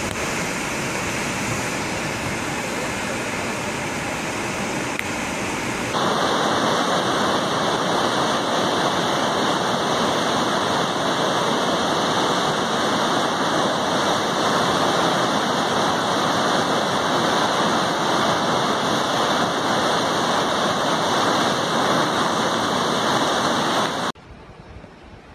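Muddy floodwater rushing in a swollen river, a steady loud noise of churning water. It grows louder and brighter about six seconds in and drops away sharply near the end.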